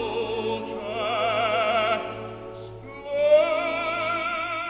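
Opera music: a singer holding long notes with a wide vibrato, sliding up into a new held note about three seconds in.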